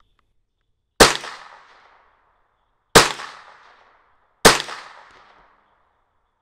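Three .22 Long Rifle shots from a scoped Marlin Model 60 semi-automatic rifle, the second about two seconds after the first and the third a second and a half later. Each shot is a sharp crack that rings out and fades over about a second.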